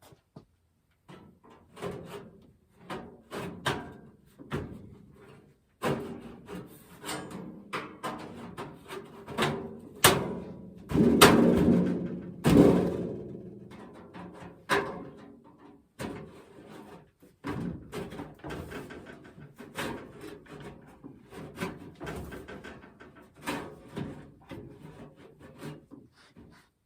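Irregular knocks, bangs and clattering from hands-on installation work, busiest and loudest around the middle, with scraping between the hits.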